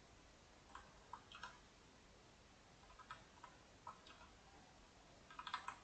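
Faint, scattered clicks of a computer keyboard and mouse, with a quick run of several clicks near the end.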